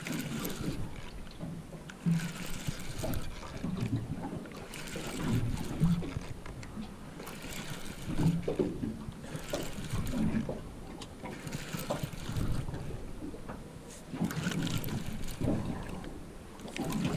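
Water lapping and slapping against the hull of a small boat in uneven swells every second or two, with faint indistinct voices under it.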